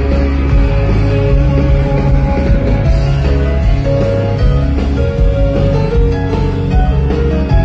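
Country band playing live and loud: electric guitar and drum kit over heavy bass, recorded from within the crowd.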